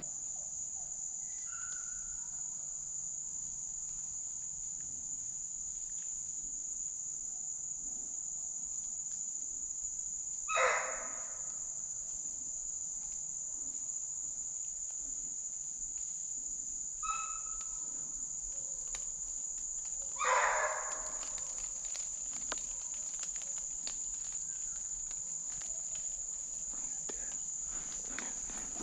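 Steady, high-pitched drone of insects in the woods, holding one even tone throughout. Two short, louder noises break in, about ten and twenty seconds in.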